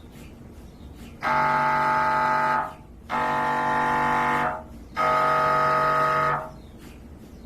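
MRI scanner's gradient coils buzzing during a scan sequence: three loud, steady buzzing tones, each about a second and a half long, with short gaps between.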